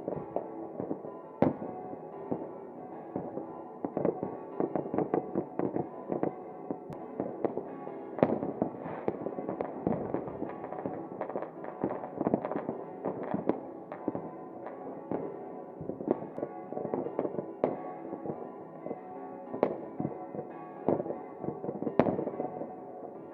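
Fireworks going off: a dense run of sharp bangs and firecracker crackle, thickest in the middle and with a few single louder bangs near the start and near the end, over music with sustained tones.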